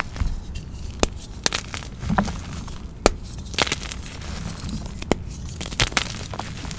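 Soft blocks of reformed gym chalk crushed and crumbled by hand in loose cornstarch and baby powder: a soft crunching with several sharp snaps and crackles as the chunks break apart.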